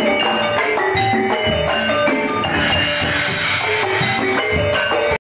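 Intro music with drums and a quick line of short pitched notes, cutting off abruptly at the end.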